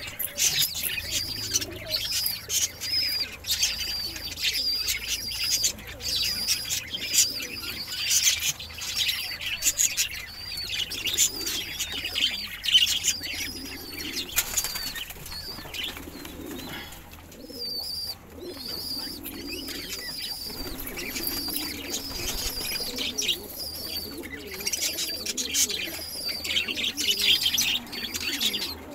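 Domestic pigeons cooing and flapping their wings, over a constant chatter of high, quick chirps from other birds in the loft.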